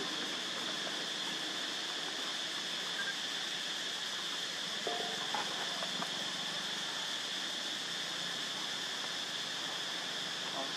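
Insects droning steadily in one high, even band over a constant hiss, with a couple of faint brief sounds about five seconds in.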